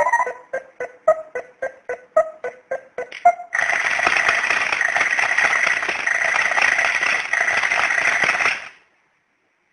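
Time-bomb novelty alarm clock sounding: a fast run of short electronic beeps at about three to four a second, then from about three and a half seconds in a loud continuous alarm ringing for about five seconds that cuts off abruptly.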